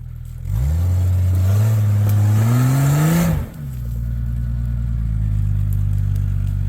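Off-road vehicle's engine revving under load, its pitch climbing steadily for about three seconds, then dropping suddenly back to idle as the throttle is let off: a push up an obstacle that falls just short.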